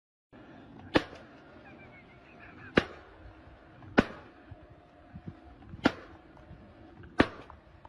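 Five sharp, single impacts at uneven intervals of one to two seconds, over a steady background noise.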